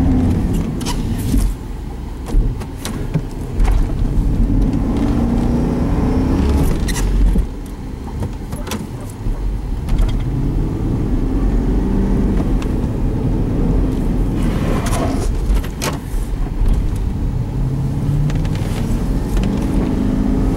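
Chevrolet Tahoe SUV's engine revving up and dropping back again and again, heard from inside the cab, as the truck works free after getting stuck in a hard snowdrift in four-wheel drive. Scattered sharp knocks come through the revving.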